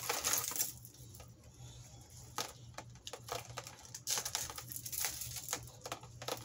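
Small metal jewelry pieces clicking and jingling against each other as they are picked through by hand: irregular light clinks, several a second, some louder than others.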